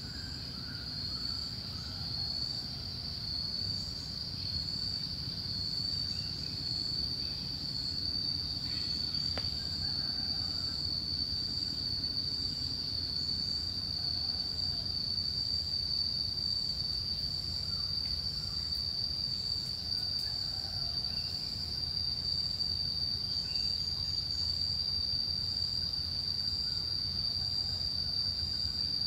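Forest insects droning: one continuous high-pitched tone, with a low steady rumble underneath.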